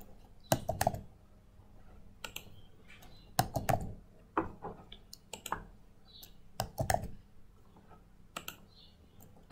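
Computer keyboard typing in short bursts of a few keystrokes, with pauses of a second or so between the bursts.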